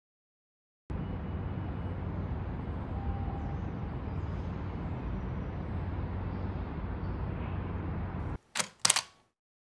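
Steady low rumble of distant city traffic that starts suddenly about a second in and cuts off abruptly after about seven seconds. Near the end, a camera shutter clicks twice in quick succession.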